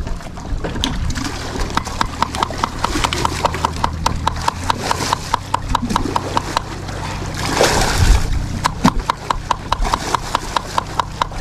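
Bait being chopped rapidly with a blade: sharp, even chopping strikes about three to four a second, each with a slight ring. The chopping pauses briefly about seven seconds in, with a short rush of noise, then carries on.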